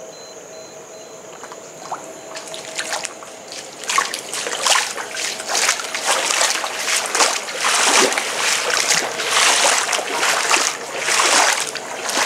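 Sloshing and splashing of someone wading through shallow floodwater, irregular swishes about one or two a second that begin about two seconds in and grow louder.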